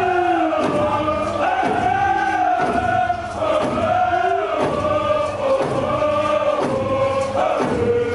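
A large group of voices chanting a warrior song in unison, holding long wavering notes, with hand drums beating a steady rhythm beneath.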